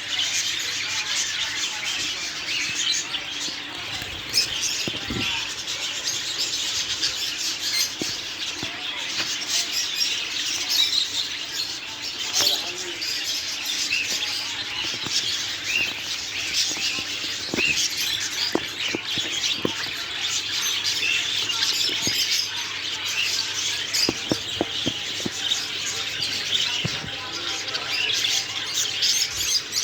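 Many small caged pet birds chirping and twittering together in a dense, continuous chatter, with scattered short knocks and flutters.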